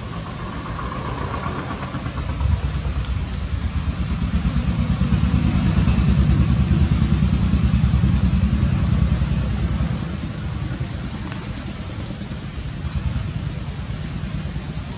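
An engine running close by with a rapid low pulsing, growing louder a few seconds in and easing back after about ten seconds.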